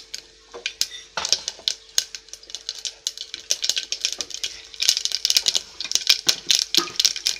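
Mustard seeds spluttering in hot sesame oil in an aluminium pot: irregular sharp pops and crackles that come faster from about a second in and are densest in the second half. The popping is the sign that the oil is hot enough for the tempering.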